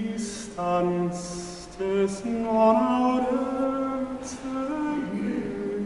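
A man singing a medieval troubadour song unaccompanied, in phrases of held notes that step up and down, with short hissing consonants between them.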